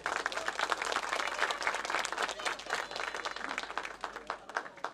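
Theatre audience applauding, a dense patter of many hands clapping that thins out and dies away near the end.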